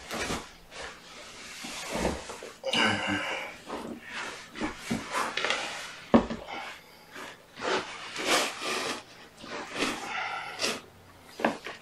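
Handling noise: clothing and cloth rustling in irregular spells, with a few soft knocks, as a person shifts about on the floor and settles a kitten in his lap.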